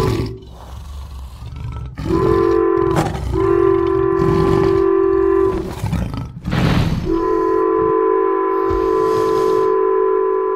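Train horn sounding in repeated long blasts, a chord of several steady tones, over the rumble of a train. Between blasts, about six and a half seconds in, comes a short loud roar.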